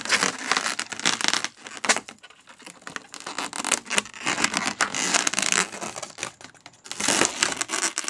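Inflated latex twisting balloons rubbing and scratching against each other and the fingers as a knot is tied in a balloon's tail, in irregular scratchy bursts with a quieter stretch about two seconds in.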